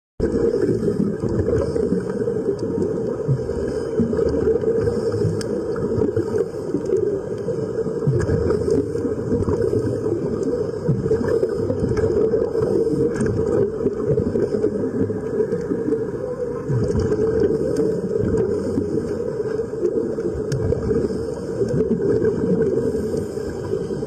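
Steady, muffled underwater rumble with bubbling, the sound of air streaming out of sea-walking diving helmets.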